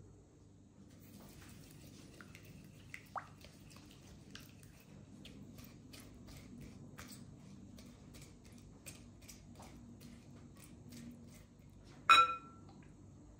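Silicone spatula stirring melted butter in a glass bowl: soft swishing with scattered light ticks against the glass. About twelve seconds in, a glass cup clinks against the bowl with a short ring as oil is poured in.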